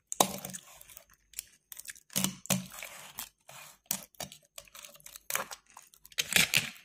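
Box-cutter blade scraping and slitting the paper seal sticker on a plastic dip cup, then fingers peeling the sticker off: a run of irregular scratchy tearing and crinkling sounds, loudest near the end.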